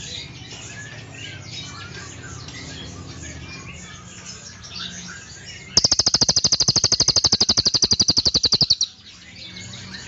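A crested jay (cililin) giving its loud, fast, even mechanical rattle for about three seconds, starting a little past halfway and stopping abruptly. Before it, faint chirping of many other caged birds.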